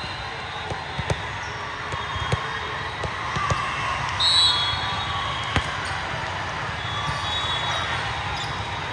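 A volleyball knocking off hands and the court floor every second or so, with a brief shrill high tone about four seconds in, over the echoing murmur of a gym.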